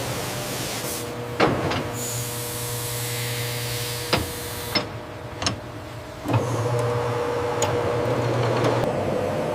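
Workshop machinery running with a steady hum and a held tone. A hissing sets in about two seconds in and stops near the five-second mark, and there are several sharp clicks or knocks, the strongest about a second and a half in.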